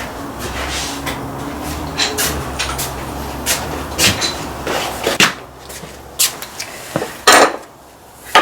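Metal parts of a bearing press tool clinking and knocking as they are handled and set up on the hub, with one louder knock near the end.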